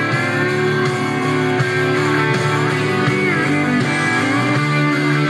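Guitar-driven music from a CD played loud through a 1998 Chevrolet S10's cab speakers by a newly installed Pioneer in-dash CD player, with its volume turned up to about 40.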